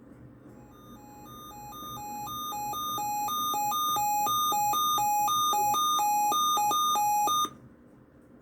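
A weather radio receiver's alert alarm: two electronic beep tones alternating back and forth. It grows louder over its first few seconds, holds, then cuts off suddenly, marking an incoming severe thunderstorm watch.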